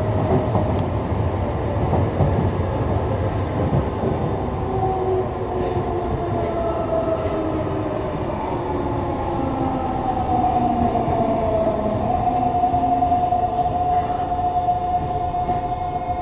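Yokohama Blue Line 3000A subway car running, its Mitsubishi GTO-VVVF inverter whining over the wheel and rail noise. The inverter tones glide downward in several parallel pitches, then settle on one steady tone about twelve seconds in.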